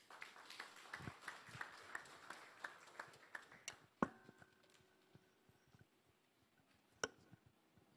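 Light, scattered audience applause for about four seconds, then a single sharp knock that rings briefly, and one more click near the end.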